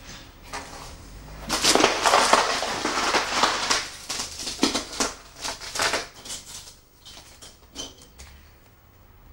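Footsteps crunching over rubble and debris on a floor: a dense run of crackling and crunching from about a second and a half in to around six seconds, then a few scattered clicks.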